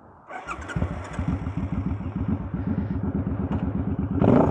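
Suzuki Boulevard C50's 800cc V-twin starting up and settling into a steady, evenly pulsing idle. It swells briefly near the end.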